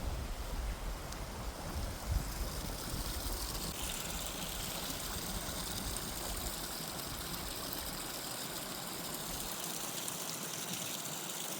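Steady rushing of distant running water, with wind buffeting the microphone through the first half until it dies away about seven seconds in.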